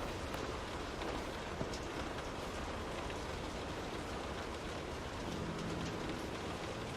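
Steady rain on a window pane: an even hiss of rainfall with scattered drop ticks.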